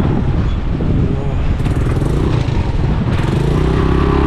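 Suzuki 150cc single-cylinder motorcycle engine running at low speed as the bike picks its way over rocks and mud.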